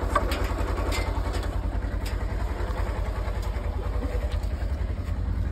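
Side-by-side utility vehicle's engine idling with a steady low throb, with a few light clicks over it near the start.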